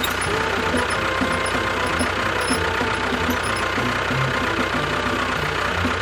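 An engine running steadily like an idling tractor, with low notes of background music under it.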